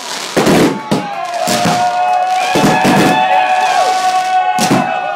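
Fireworks shells bursting at close range, about six sharp bangs spread over a few seconds, over a long, steady, pitched whistle that holds for about four seconds.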